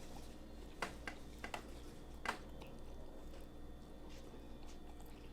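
Faint eating sounds: a few short, sharp mouth clicks and soft chewing over a steady low hum.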